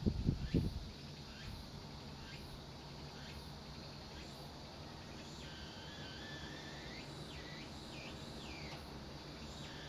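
A gust of wind rumbles on the microphone in the first second. After it comes a faint outdoor background of droning insects, with short falling chirps repeating about once a second.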